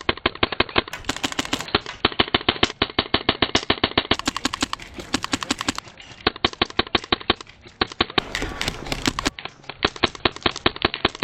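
Airsoft guns firing long, rapid full-auto bursts of sharp clicks, about a dozen shots a second, with short pauses between strings. A short stretch of scuffing noise comes in a little after the eighth second.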